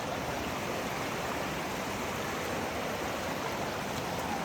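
Steady rush of running water in a canyon creek.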